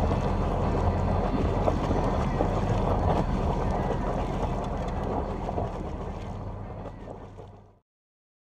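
Sailboat underway: wind buffeting the microphone over water noise, with a steady low drone beneath. It fades out near the end and then stops.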